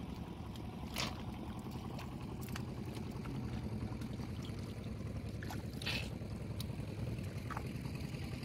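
Hands sloshing and splashing in shallow muddy water while feeling for fish, with two sharper splashes, about a second in and about six seconds in, over a steady low rumble.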